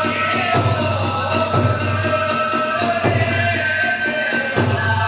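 Kagura hayashi ensemble playing a fast, even beat: drums with rapid clashes of small hand cymbals (tebyōshi) and a wavering held melody line above, likely the fue flute.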